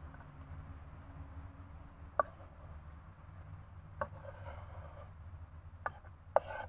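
Kitchen knife chopping tomatoes on a wooden cutting board: about four sharp knocks of the blade on the board, spaced a second or two apart, the loudest near the end.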